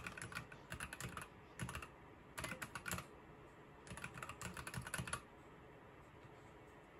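Fast typing on a Keychron V1 mechanical keyboard: rapid key clacks in quick bursts with short pauses between words, stopping about five seconds in.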